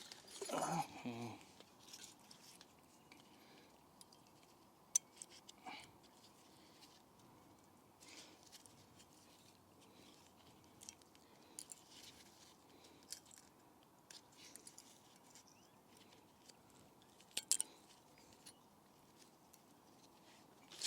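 Scattered small metallic clicks and taps from handling brake pad slide clips and pressing them into a caliper bracket, with one sharp click about five seconds in and a quick cluster of clicks near the end.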